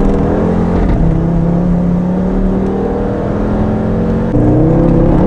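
Tuned Audi RS3's five-cylinder turbo engine pulling under load, heard from inside the cabin. Its pitch slowly rises, then steps up higher and louder about four seconds in.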